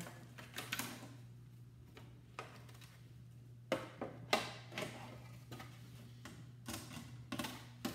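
Scattered clicks and knocks of a flat-screen TV's plastic back shell being handled and lifted on a workbench, the loudest about four seconds in, over a steady low hum.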